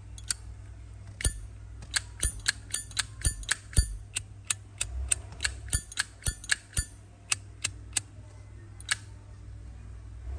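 Zippo lighter clicking as it is handled, about twenty sharp metal clicks in quick runs of three or four a second, with the lid snapping open and shut.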